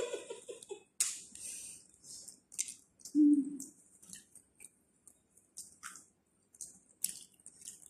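Light crinkling, rustling and small clicks of hands handling food and its paper or plastic wrapping on a table, in short scattered bursts with quiet gaps between. A short hummed 'mm' a little over three seconds in.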